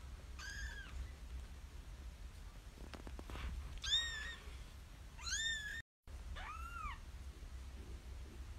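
Very young kittens mewing: four short, high-pitched mews, each rising and then falling in pitch.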